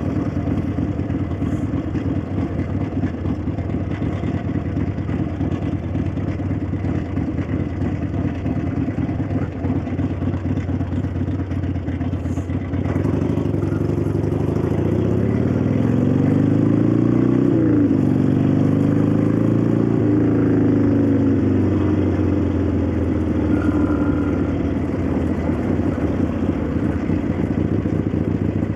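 1965 Harley-Davidson XLCH Sportster's 883 cc Ironhead V-twin running at low revs, then a little under halfway in opening up and accelerating, its pitch rising, dropping sharply once at a gear change and climbing again before settling. Mechanical clatter from the valvetrain runs under the exhaust note.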